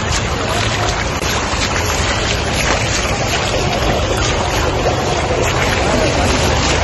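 Heavy rain falling on pavement and rainwater streaming across the road surface, a steady rushing noise.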